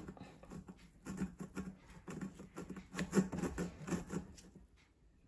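Wooden spoon pressing and scraping a cooked soybean-and-oil mash against a stainless-steel mesh strainer to squeeze the oil through. Faint, irregular scrapes and soft squishes that stop shortly before the end.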